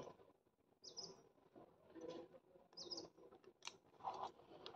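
Near silence with a few faint, short bird chirps. A faint sharp click and a brief rustle come between three and a half and four seconds in.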